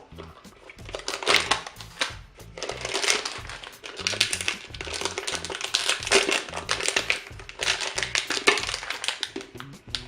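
Plastic packaging crinkling and crumpling in repeated bursts as a toy package is opened by hand, over background music.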